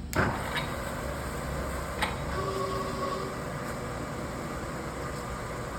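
1999 SWI Trak DPM 3-axis CNC mill starting its sample program. A sharp clunk comes just after the start and a smaller click about two seconds in, then a brief whine, all over a steady machine hum.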